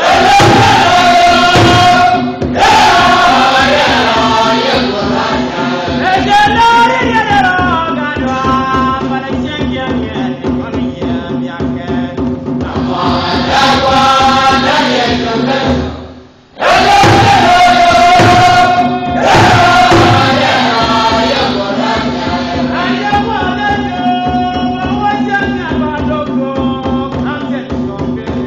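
A church choir of many voices singing a hymn together, over a steady low drone. The singing breaks off for a moment about halfway through and starts up again.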